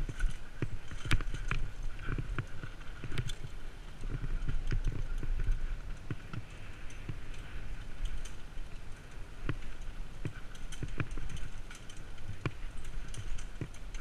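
Downhill mountain bike riding over a rough dirt and stone trail: a steady low rumble of the tyres on the ground, with frequent sharp clicks and rattles from stones and the bike's parts.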